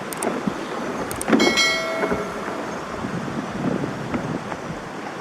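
Steady rush of flowing water. About a second and a half in, a short ringing sound with a clear pitch stands out above it.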